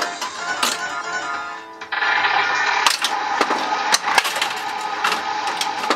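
Bally Who Dunnit pinball machine in play, with the playfield glass off: its electronic music and sound effects run under repeated sharp clacks from the flippers and solenoids. About two seconds in, the music and effects change to a new, louder passage.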